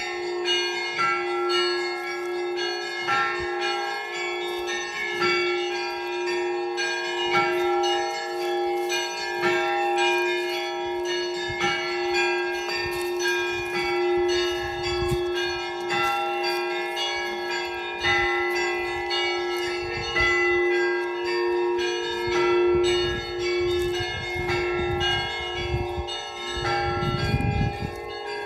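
Russian Orthodox church bells of several pitches struck over and over in a continuous rhythmic peal, with a deep bell's tone humming steadily underneath.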